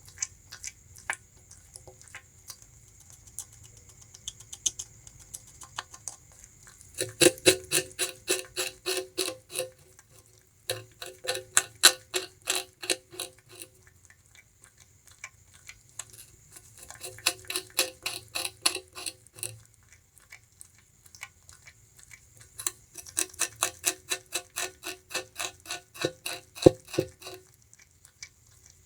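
Bamboo rat gnawing and chewing sugarcane: fast, crisp crunches at about four a second, in four runs of a few seconds each with short pauses between, and only scattered faint crunches during the first several seconds.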